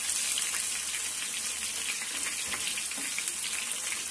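Marinated paneer cubes shallow-frying in hot oil in a nonstick pan: a steady sizzle with small scattered crackles.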